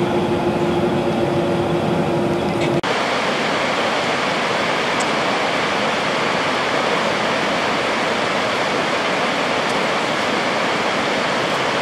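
For about the first three seconds, a bus's steady engine hum and road noise. Then an abrupt change to the steady, even rush of Tvindefossen, a tall waterfall cascading down tiers of rock.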